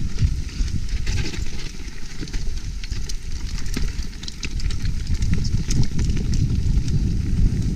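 Mountain bike riding fast down a dirt trail: a steady low rumble of tyres and wind buffeting the action-camera microphone, with scattered sharp clicks and rattles from the bike over roots and stones.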